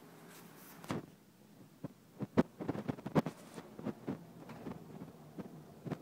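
Irregular knocks and thumps from a phone camera being handled and carried around, a few loud ones clustered together near the middle.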